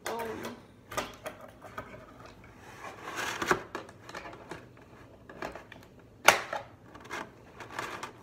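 Scissors snipping through a clear plastic blister pack, with the stiff plastic crackling and clicking between cuts. One sharp snap, about three-quarters of the way through, is the loudest.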